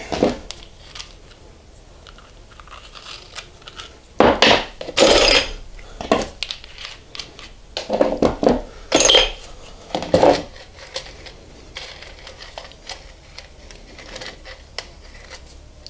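Black iron and brass pipe fittings clinking and scraping as they are picked up, set down on a workbench and tried against one another. There are several louder clanks among the small clicks.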